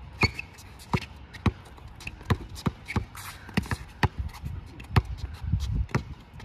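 Basketball being dribbled on a hard court in play: a run of sharp, uneven bounces, about two a second.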